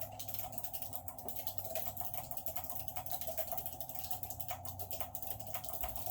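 Fast typing on a low-profile Chocofi split keyboard with Choc Robin switches: a dense, unbroken patter of key clicks, several strokes a second.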